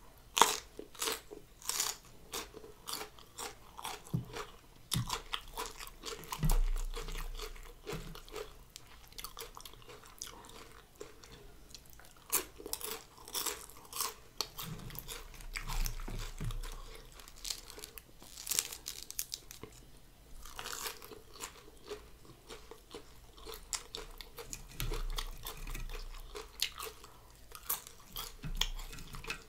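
A person chewing and crunching mouthfuls of noodle salad and raw vegetables, with many short, crisp crunches one after another.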